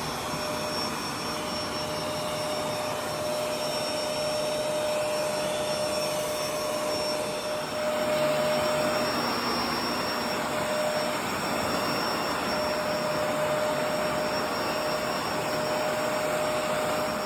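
HEAPETS corded mattress vacuum cleaner running continuously, a steady rush of motor and airflow with a thin steady whine. It gets slightly louder about eight seconds in.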